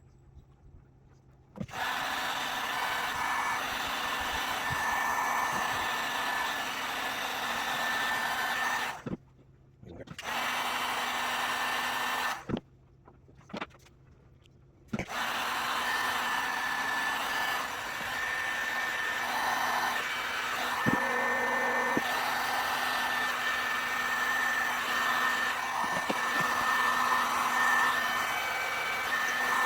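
Electric heat gun blowing: it switches on a couple of seconds in, cuts out twice for a second or two, then runs steadily with a faint whine. Heat guns are used to shrink tubing over harness wire joints.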